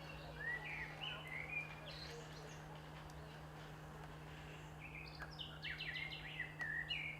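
Small birds chirping: a few short, sweeping chirps in the first two seconds, then a quick run of repeated notes about five seconds in, over a low steady hum.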